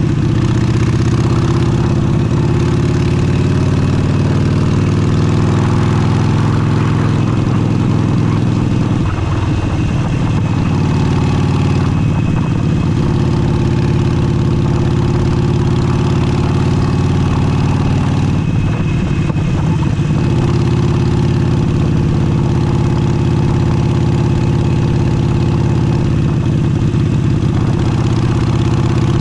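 Harley-Davidson Forty-Eight's air-cooled 1200 cc V-twin running through an aftermarket Vance & Hines exhaust, a steady loud note whose pitch drops and shifts about nine seconds in and again near nineteen seconds.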